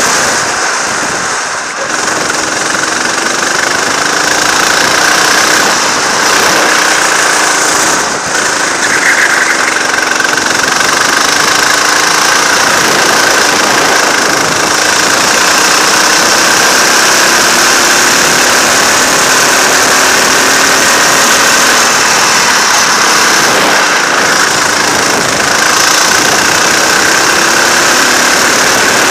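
Go-kart engine running hard on a lap, its pitch repeatedly rising and falling with the throttle, with two short dips in level about 1.5 and 8 seconds in.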